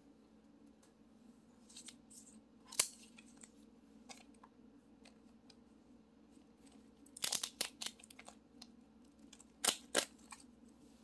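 Crinkling and crackling of a glue-dot sheet's waxy backing paper being handled and peeled, in scattered sharp crackles with a quick flurry about seven seconds in and two louder snaps near the end, over a faint steady hum.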